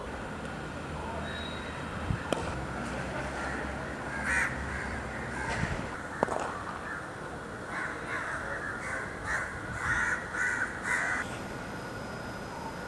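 Crows cawing again and again, with a quick run of caws between about eight and eleven seconds in. A single sharp crack about six seconds in is a cricket bat striking the ball.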